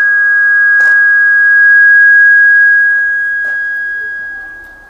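Public-address microphone feedback: a loud, steady, high-pitched ring on a single note that fades away near the end.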